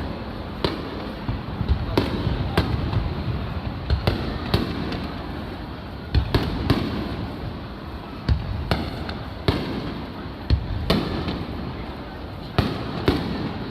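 Aerial fireworks shells bursting: a rapid, irregular run of sharp bangs, about one or two a second, over a continuous low rumble.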